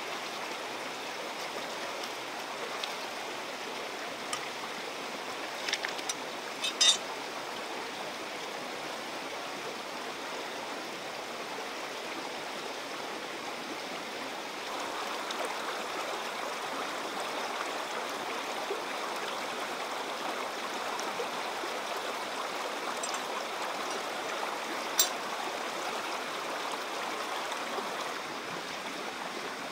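A shallow stream running over rocks, a steady rush of water. A few short sharp clicks sound over it, the loudest about seven seconds in and another about five seconds before the end.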